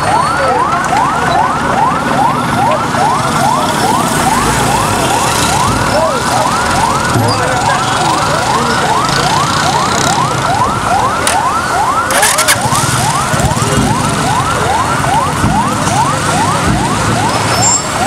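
Electronic vehicle siren on a fast yelp, one rising sweep about three times a second, repeating without a break. A brief sharp click about twelve seconds in.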